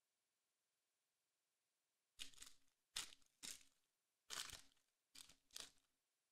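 Foil wrapper of a trading-card pack crinkling and tearing in six short bursts, starting about two seconds in, as the pack is ripped open.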